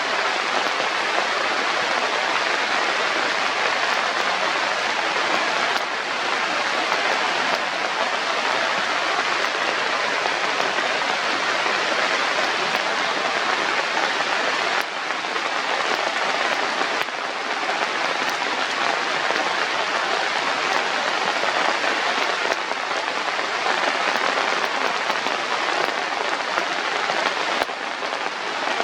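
Steady rushing hiss like heavy rain, with no tone or rhythm, dipping briefly in level a few times.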